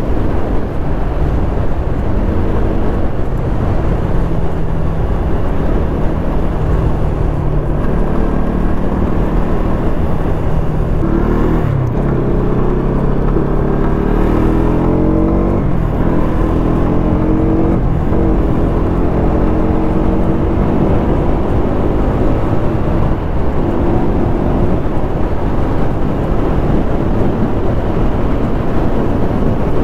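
Kawasaki ZX-10R's inline-four engine running at highway speed under heavy wind rumble on the microphone. In the middle it accelerates: the engine note climbs, drops suddenly, then climbs again, like upshifts through the gears.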